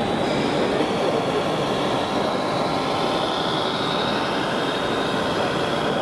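Steady, dense din of a busy exhibition hall, with a faint high whine rising from about two seconds in.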